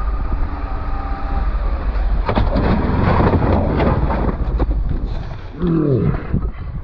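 Motorcycle engine running with road noise, then a rough noisy stretch with several sharp knocks in the middle.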